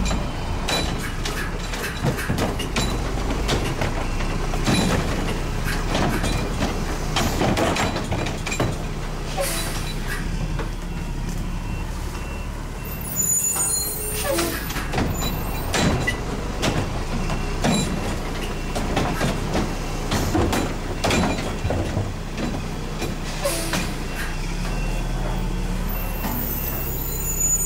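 Mack LE front-loader garbage truck's diesel engine running steadily, with repeated metal clanks and bangs as carts are tipped into its front carry can. The air brakes hiss sharply about 13 seconds in and again near the end.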